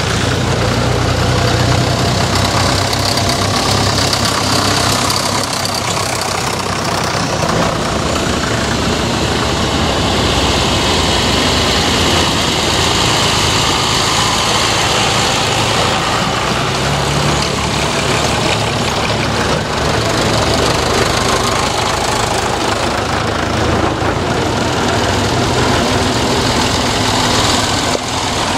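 Engines of vintage tractors, among them Ford, John Deere and Massey Ferguson, running as they drive past close by one after another. The engine note changes every several seconds as each tractor comes and goes.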